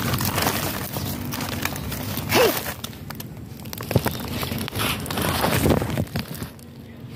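Woven plastic sack crinkling and rustling as it is handled and pulled open, with irregular crackles and a short falling squeak about two and a half seconds in.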